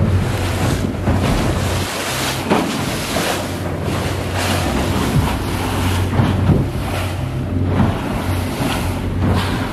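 Boat underway through a choppy sea: a steady low engine hum under water rushing and slapping against the hull, with wind buffeting the microphone in repeated gusts.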